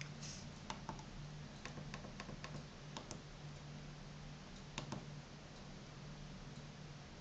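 Keypad buttons on a FRITZ!Fon MT-F cordless handset being pressed to step through its menus: about ten faint clicks, many in quick pairs, over a steady low hum.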